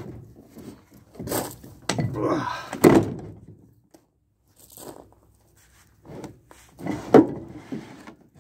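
Heavy cast-iron parts of an old Reed bench vise clunking and scraping as the vise body is set onto its swivel base and worked by hand. There is a sharp metal clunk about three seconds in and another near the end.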